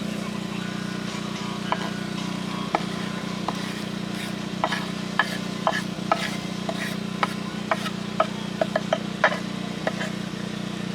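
A metal utensil stirring and knocking against a cooking pot, giving a string of sharp, irregular clinks that come more often in the second half, over a steady low hum.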